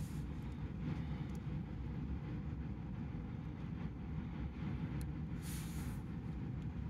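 Dwarf hamster nibbling a piece of carrot: faint crunching clicks, with a brief rustle of wood-shaving bedding about five and a half seconds in, over a steady low rumble.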